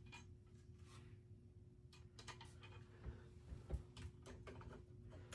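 Faint, irregular ticks and clicks of small metal fan hardware and a screwdriver being handled while ceiling fan blades are fastened on. Two low thumps come about three and three and a half seconds in.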